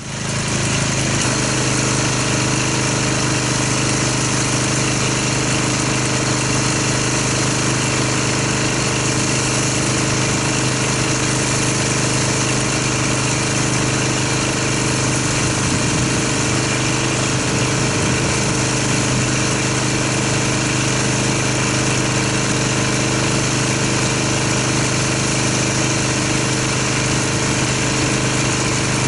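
Pressure washer motor running steadily, with the hiss of its water spray as the soap is rinsed off a car. It cuts in abruptly at the start.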